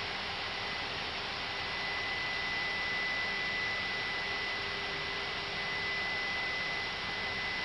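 Airbus A320 flight-deck background noise in the climb: a steady hiss with a faint, steady high-pitched whine running through it.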